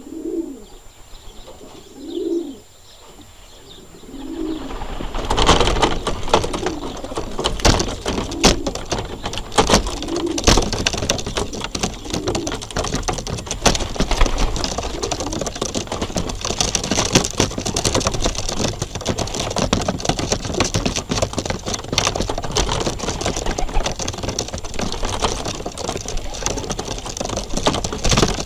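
Racing pigeons cooing, low coos about once a second. After about five seconds a dense, close clatter of pigeons pecking at a loft floor takes over and is the loudest sound, with beaks tapping, feet scratching and wings brushing.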